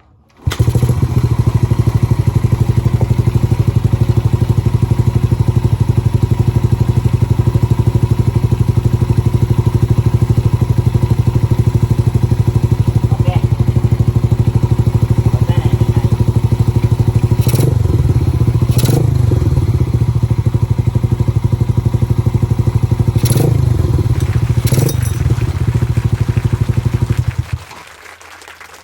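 Yamaha 200cc motorcycle engine running steadily on a freshly repaired engine, with a few short louder knocks in the second half. The engine cuts off about 27 seconds in.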